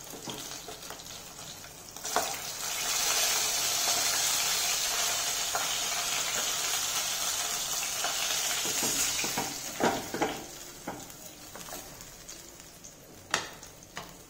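Rohu fish steaks sizzling in hot oil in a kadhai. The sizzle swells about two seconds in and dies down after about ten seconds as the pieces are lifted out. A steel spatula knocks against the pan a few times.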